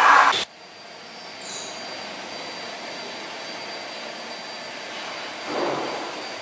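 Steady rushing background noise with a faint high steady tone. It follows a short loud burst that cuts off abruptly about half a second in, and a brief swell of noise comes about five and a half seconds in.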